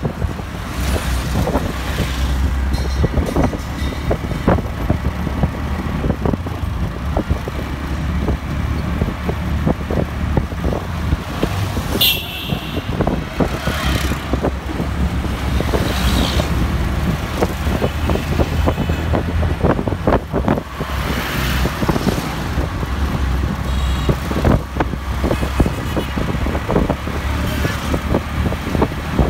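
Road traffic: vehicle engines running with a steady low rumble, with a brief horn toot about twelve seconds in.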